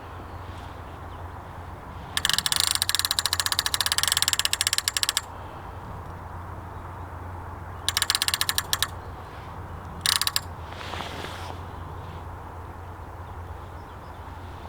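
Fishing reel ratchet clicking rapidly as the reel turns, in three bursts: a long one of about three seconds, a shorter one of about a second, then a brief one.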